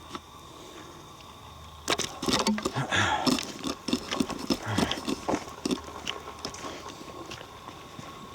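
Footsteps on a woodland trail: a quick, irregular run of steps starting about two seconds in and thinning out after about six seconds.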